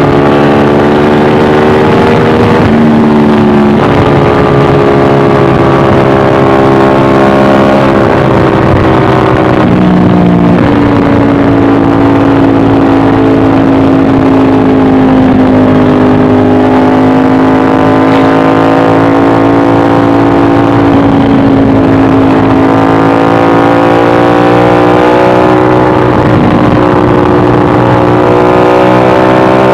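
Ducati 1199 Panigale S's Superquadro L-twin engine under way at highway speed. The engine note steps down twice in the first ten seconds as the bike slows, holds steady, then climbs gradually in the last third as it accelerates again.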